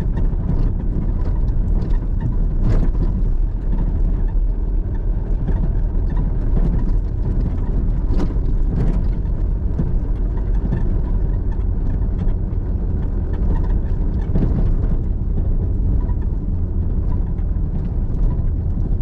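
Pickup truck driving on a rough, potholed dirt road: a steady engine and tyre rumble with occasional knocks and rattles as it goes over bumps.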